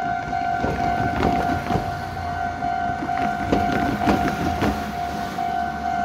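Japanese railway level-crossing warning bell ringing steadily in repeated dings. Over it a train passes, its wheels clacking over the rail joints in groups from about half a second in until near the end.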